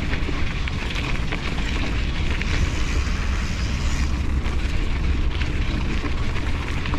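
Wind rumbling steadily on the action-camera microphone, with faint scattered clicks and rattles from the mountain bike rolling over the trail.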